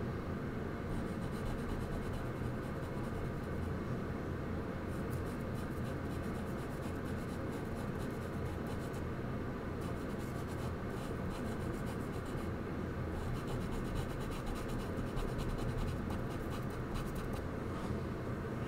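Charcoal scratching across paper in spells of quick, short strokes with brief pauses between them, over a steady low hum.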